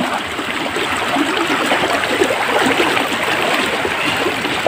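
Muddy floodwater flowing steadily and splashing around the legs of people wading through it knee-deep.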